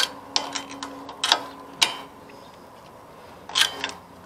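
About half a dozen sharp, irregular clicks and taps of hand tools and parts being handled while the new carburetor is fastened onto a Briggs & Stratton riding-mower engine, the loudest right at the start.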